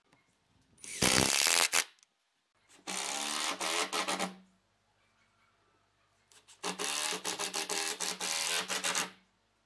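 Cordless drill driving wood screws through pine foot rails into a solid-wood tabletop, in three runs: a short, loud one about a second in, then two longer ones with the motor's steady hum under the grinding of the screw biting into the wood.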